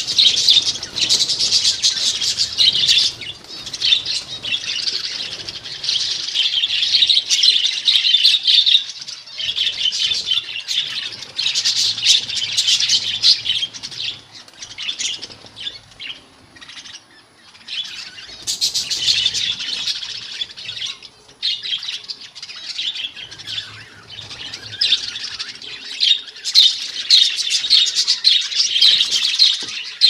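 A flock of budgerigars chattering and warbling together: a dense, high twittering that comes in waves, thinning out for a few seconds a little past the middle before swelling again.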